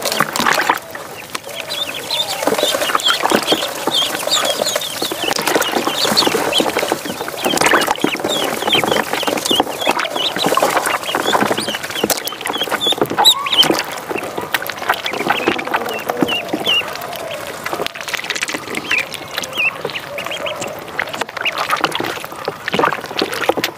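Many ducklings peeping constantly, with short high peeps overlapping throughout, and water splashing in the tub as they are put in and paddle about.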